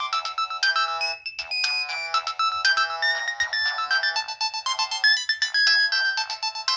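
A preloaded Nokia 1209 mobile phone ringtone playing through the phone's small speaker. It is a quick electronic melody with several notes sounding at once, thin and with no bass.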